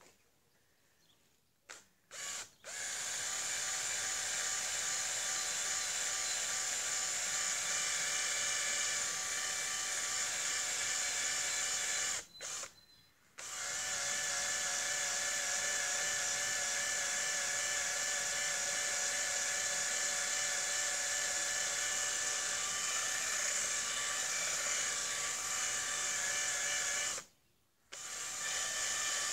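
Cordless drill spinning a brush against soapy car exhaust tips, running with a steady whine. It starts after two short bursts, stops for about a second twice, once near the middle and once near the end, and each time runs again.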